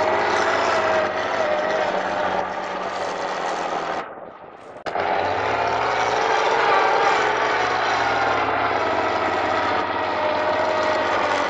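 Trial truck's engine running hard under load as the truck climbs a steep gravel slope, with wavering pitch as the revs shift. The sound drops out abruptly for under a second about four seconds in, then the engine resumes.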